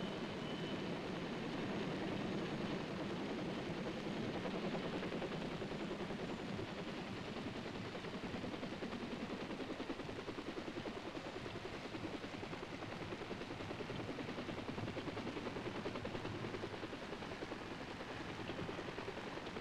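Piasecki H-21 troop-carrier helicopters running on the ground, rotors turning with a rapid, even chopping beat over a steady engine noise.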